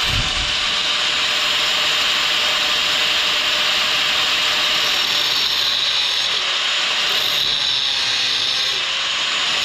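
Electric angle grinder with a cut-off wheel running steadily, its motor whine wavering as it cuts into a small steel choke piece held in a bench vise to trim the top off it. The cutting throws sparks in the second half.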